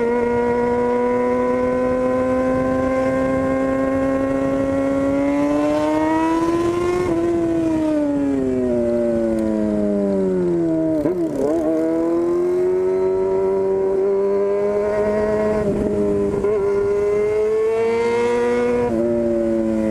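Yamaha FZ6 inline-four engine running through a straight-through 4-into-1 exhaust with no muffler, very loud. The note holds steady, climbs a little about a third of the way in, then falls away, dipping briefly about halfway through. It settles steady again, with a small rise and fall near the end.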